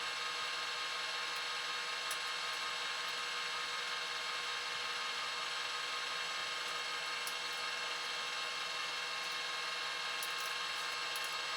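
Steady mechanical whir with a high hiss, unchanging throughout.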